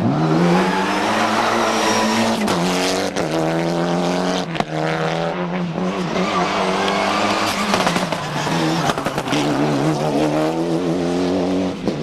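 Mitsubishi Lancer Evolution rally car's turbocharged four-cylinder engine at full racing throttle. The revs climb and drop several times as it accelerates, shifts and lifts, with sharp cracks in between.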